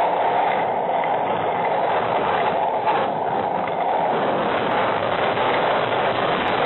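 Storm with heavy wind and rain, a steady loud rush picked up by a security camera's microphone.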